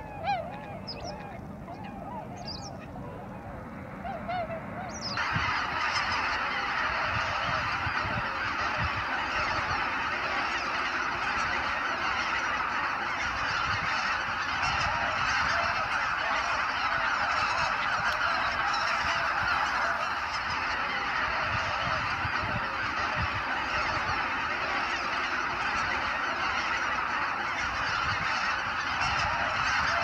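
Scattered single calls of waterfowl, then about five seconds in a large flock's dense chorus of many overlapping calls starts abruptly and carries on steadily.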